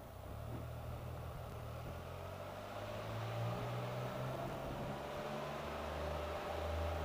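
Can-Am Spyder RT three-wheeled motorcycle running at road speed: a low engine note that shifts in pitch, a steady whine above it, and road and wind hiss. It gets a little louder about three seconds in.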